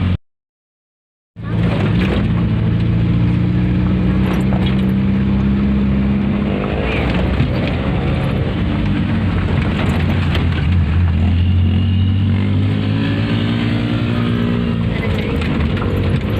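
A vehicle engine running steadily at a fairly constant speed, its pitch shifting slightly now and then; the sound cuts out to silence for about a second just after the start, then resumes.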